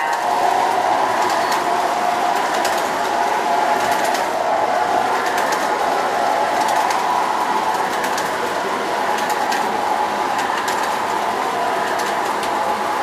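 Standard Gauge tinplate passenger cars of an MTH reproduction Lionel State Set rolling past on three-rail track: a steady metallic running noise from the wheels, with scattered sharp clicks.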